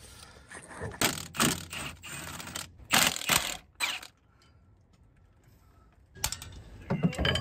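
Cordless Milwaukee FUEL impact wrench spinning off the clutch pressure-plate bolts in several short bursts, with a pause of about two seconds in the middle.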